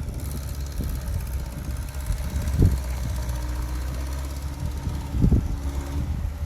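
A heavy diesel engine of earthmoving machinery running steadily at low revs, with two dull low thumps, about two and a half seconds apart.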